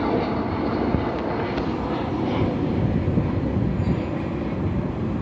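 Jet airliner's engines rumbling steadily as it comes in to land.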